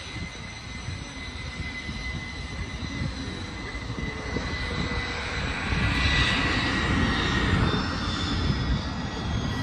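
Business jet's engines whining as it taxis: a steady high whine, with a rush of engine noise that swells about six seconds in, over a low rumble.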